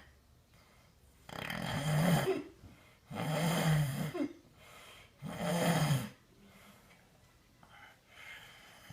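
Loud snoring: three long, rasping snores about two seconds apart, followed by softer breaths near the end.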